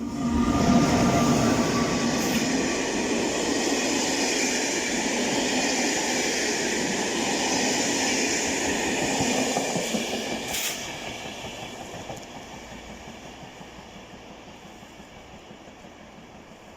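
A train passing close by: loud rail and wheel noise that comes on sharply, holds for about ten seconds, then fades away.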